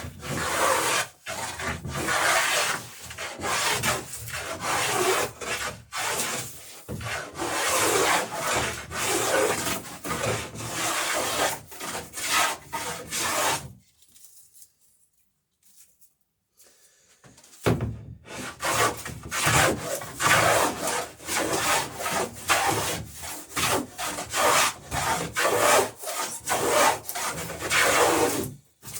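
Hand plane shaving a bevel along the edge of a wooden dory plank, in quick repeated strokes, to fair it to take the next plank. The strokes stop for a few seconds about halfway through, then start again.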